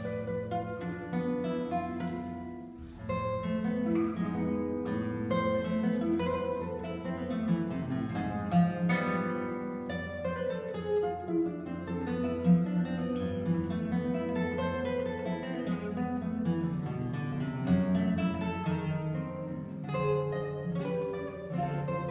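Solo classical guitar played fingerstyle: plucked notes of a melody over bass notes, with a brief lull about three seconds in.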